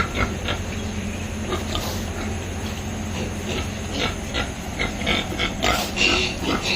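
Piglets grunting, with many short grunts close together, over a steady low hum.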